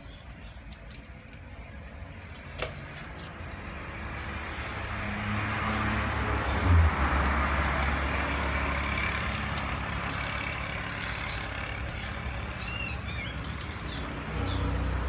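Dogs eating from metal bowls, with scattered light clicks of food and bowl early on, under a motor vehicle engine's steady drone that grows louder about four seconds in and then holds. A short high chirp sounds near the end.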